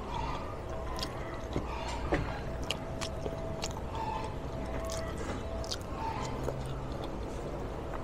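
A person chewing a mouthful of food, with small irregular mouth clicks and smacks.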